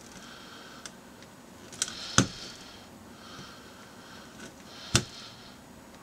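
X-Acto knife slitting a ribbon cable apart between its conductors: light scraping cuts, with sharp clicks of the blade about two seconds in and again near the end.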